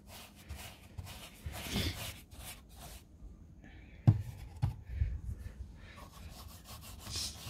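Small paintbrush scrubbing liquid wet rot wood hardener into a soft, rotted wooden shed plank, the bristles rasping on the wood in intermittent strokes. A couple of sharp knocks about four seconds in.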